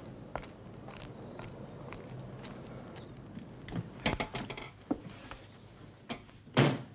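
A house's front door being opened, with scattered clicks and knocks of the latch and door, and a louder knock near the end.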